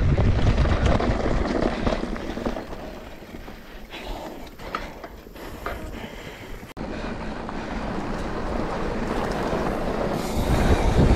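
Wind buffeting the microphone, with rattle from a mountain bike ridden along the trail. A loud low rumble eases off in the middle with a few clicks and builds up again near the end.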